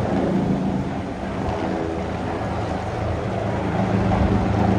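A steady engine drone under a wash of outdoor noise, with no clear rise or fall in pitch.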